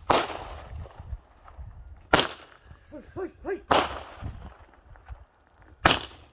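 Fireworks going off: four sharp bangs about two seconds apart, each with an echoing tail.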